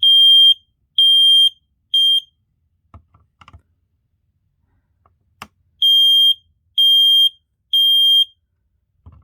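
First Alert smoke detector sounding its alarm on test: a loud, high-pitched beep three times, a pause of about three seconds, then three beeps again, the standard temporal-three evacuation pattern. A couple of faint clicks fall in the pause.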